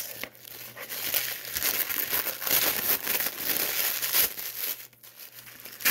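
Crinkly paper gift wrapping crackling and rustling as it is pulled off a package by hand, in irregular handfuls, dying down near the end.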